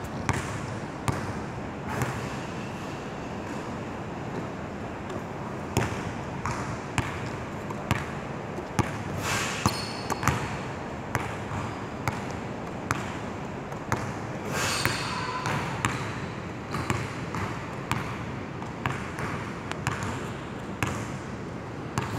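Basketballs bouncing on a hardwood gym floor: irregular sharp thuds, several a few seconds apart, over a steady hall background.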